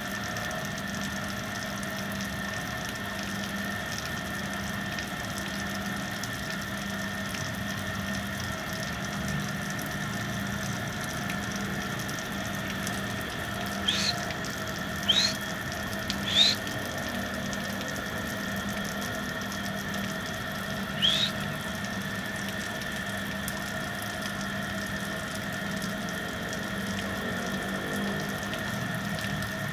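A steady drone holding several even tones. Over it come four short, rising bird chirps: three about a second apart roughly halfway through, and one more a few seconds later.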